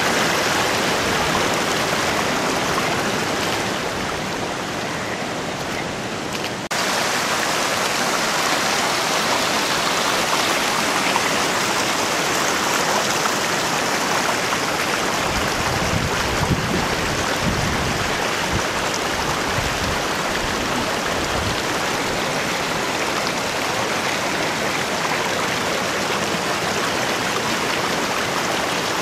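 Steady downpour of rain, an even hiss of falling water. It jumps abruptly a little louder about a quarter of the way in, and there is some low rumbling about halfway through.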